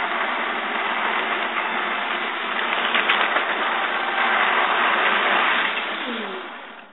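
Electric toy train's motor and wheels running on metal track, a steady noise heard close up. Near the end the motor's pitch drops and the sound fades as the train slows to a stop.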